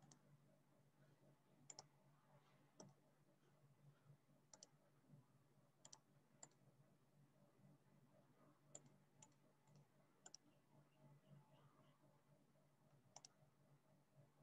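Near silence with about ten faint computer mouse clicks, scattered irregularly, over a faint low hum.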